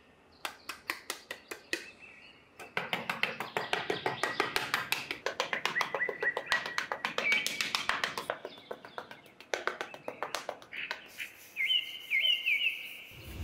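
Small metal trowel scraping and smoothing sand in quick repeated strokes, several a second. Bird chirps sound in the background, with a few short falling calls near the end.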